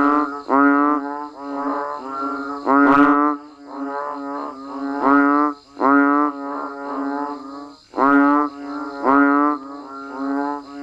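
A chorus of frogs and banded bullfrogs (Kaloula pulchra) calling, with low droning calls overlapping one another and a loud call about every second. A faint, steady, high buzz runs behind them.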